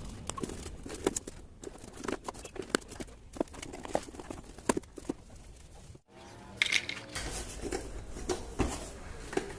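Irregular small clicks, taps and rustling from hands working with cardboard and small parts, with a short break about six seconds in.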